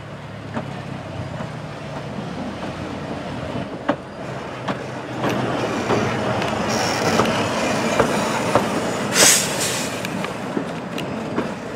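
Replica Baldwin 2-4-2 tank steam locomotive running slowly past at close range, with wheels clicking over rail joints and points, growing louder over the first few seconds. A short loud hiss of steam comes about nine seconds in.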